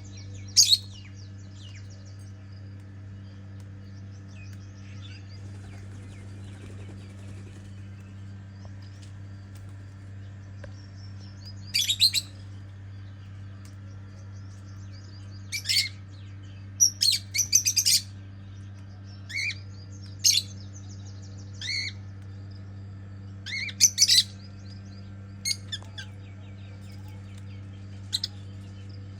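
Small pet parrots (cockatiels, ringneck and lovebirds) giving short, sharp, high chirps and calls, one near the start and then a dozen or so scattered through the second half, over a steady low hum.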